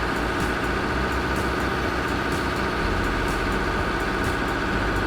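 Heavy earthmoving machine's engine running steadily under load, with a faint regular ticking about twice a second.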